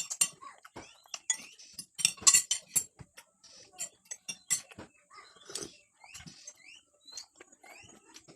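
Cutlery clinking and scraping against a plate during a meal, in short irregular clicks with a louder cluster about two seconds in.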